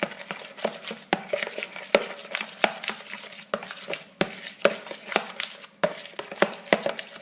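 A tablespoon clicking and knocking against the side of a bowl in quick, irregular taps as slime mixture is stirred.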